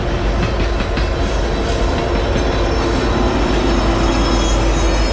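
The last cars of a train rolling past: a steady rail rumble, with the clicking of wheels over rail joints in the first second.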